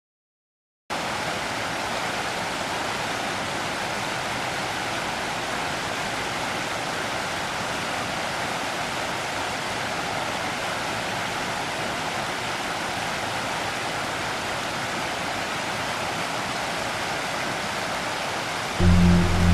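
Shallow river rushing over a rocky riffle: a steady rush of water that starts abruptly about a second in. Music comes in at the very end.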